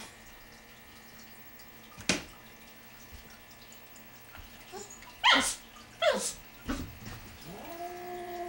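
Shetland sheepdog puppy giving two sharp yips about five and six seconds in, then a long whine that rises and holds near the end.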